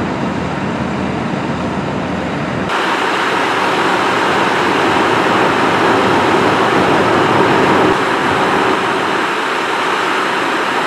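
Steady vehicle noise: a truck engine running, mixed with road traffic. About three seconds in the sound shifts abruptly to a brighter, steady traffic noise.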